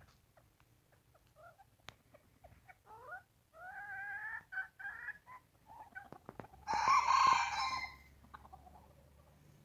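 Domestic chickens calling: a rooster crowing and hens clucking. A broken run of short pitched calls starts about three seconds in, and a louder, harsher call lasting just over a second comes near the end.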